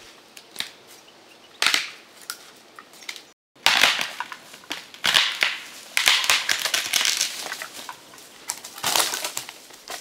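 Dry dead wood being snapped and broken by hand: a sharp crack about two seconds in, then from about four seconds a long run of loud cracking, splintering and crunching as the trunk splits apart.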